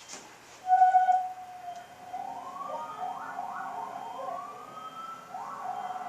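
Emergency vehicle siren: a short loud steady blast about a second in, then a wail that rises in pitch again and again and drops back.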